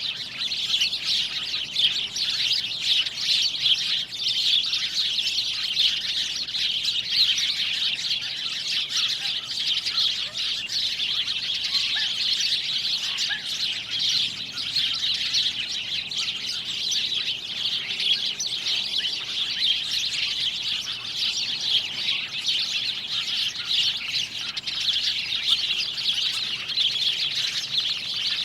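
A dense chorus of many small birds chirping and twittering together, continuous and overlapping at a steady level.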